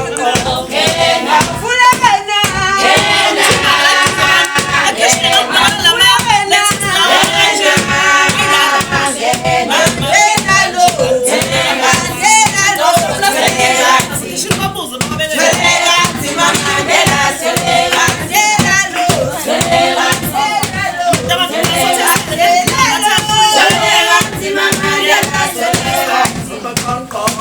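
A group of voices singing together over a steady beat of hand claps.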